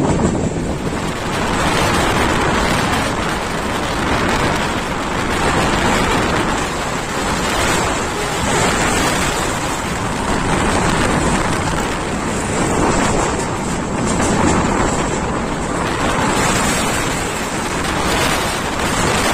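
Rushing wind and rail noise from a passenger train running at speed, picked up at an open coach door or window with wind buffeting the microphone. The noise is loud and steady, swelling and easing every second or two.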